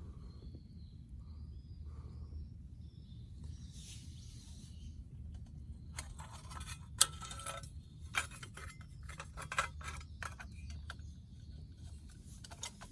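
A run of sharp clicks and clinks, like small hard objects being handled, with the loudest single click about seven seconds in, over a low steady rumble. A few short high warbling tones sound near the start.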